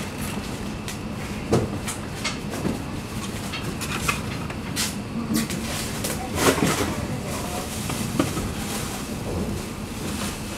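Scattered clicks and knocks from handling, the loudest cluster about six and a half seconds in, over a steady background hum.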